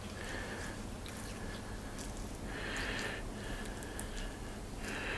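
A hand rubbing mustard over a raw beef brisket: soft, wet squishing strokes about once a second, over a low steady hum.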